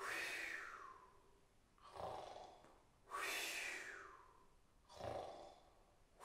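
A man imitating a sleeper's breathing: a short, snore-like breath in, then a longer airy breath out that falls in pitch, repeated about every three seconds.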